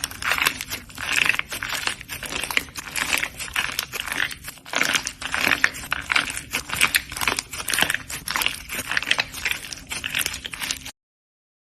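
Slime being squished and worked, with rapid irregular sticky pops and crackles that cut off suddenly near the end.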